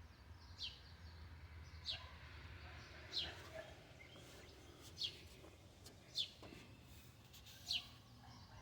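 A bird calling over and over, a short falling chirp about every one to two seconds, six times, over faint steady background noise.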